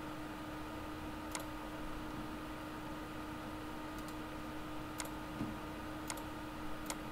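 Computer mouse clicking: several sharp, single clicks at irregular intervals, two of them in a quick pair about four seconds in, over a steady low electrical hum.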